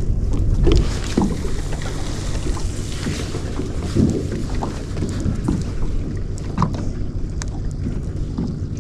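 Fishing boat's engine running with a steady low rumble, wind buffeting the microphone, and scattered light knocks and splashes.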